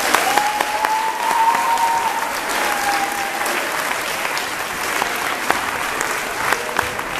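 Audience applauding at the end of a dance performance. A single long high whistle rises and falls slightly over the first three seconds.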